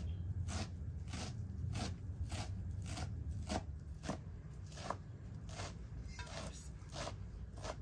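Large kitchen knife chopping a pile of fresh leafy herbs on a wooden cutting board, a short crunchy stroke about every 0.6 seconds. A steady low rumble lies underneath.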